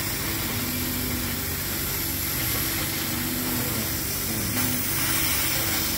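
CNC laser cutter at work cutting 18 mm plywood: a steady machine hiss and hum, with a low tone that comes and goes several times as the machine runs.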